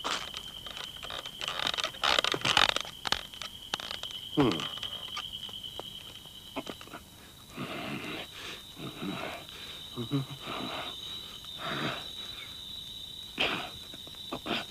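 Cartoon sound effects over a steady high chirring tone like crickets. The tone steps slightly higher about halfway through. Over it come a string of short scrapes, squeaks and breathy animal-like noises, including a quick falling squeak about four and a half seconds in.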